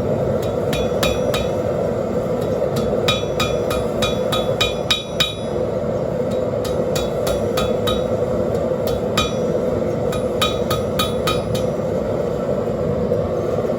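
Hammer striking steel on a 175 lb Trenton anvil: quick runs of ringing blows with short pauses between them, about four or five a second in the fastest runs. Under the blows runs the steady roar of a propane forge burner.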